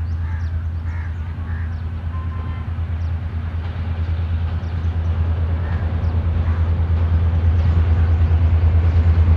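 Pakistan Railways GMCU-15 diesel-electric locomotive approaching at reduced speed, its engine a steady low rumble growing gradually louder.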